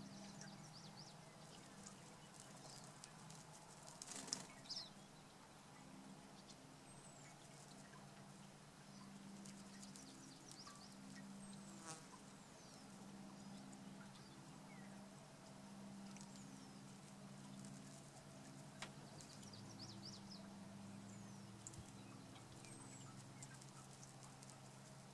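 Faint buzzing hum of a Calliope hummingbird's wings fluttering as it bathes in a bubbling fountain, with light splashes. Thin, high, downward-gliding bird chirps come and go throughout.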